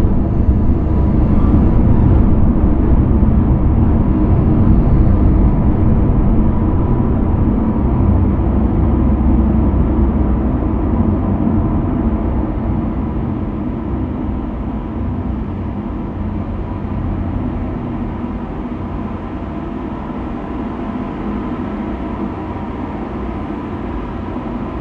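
Dark ambient drone: a dense, deep rumble with faint steady tones held above it, slowly getting quieter through the second half.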